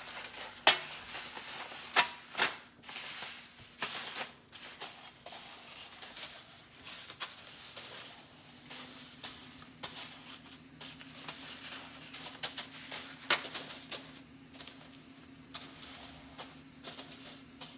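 Paper silica gel packets being handled and set down on a thin metal pizza pan: soft papery rustling with sharp taps on the metal, the loudest few in the first three seconds and one more about two-thirds through.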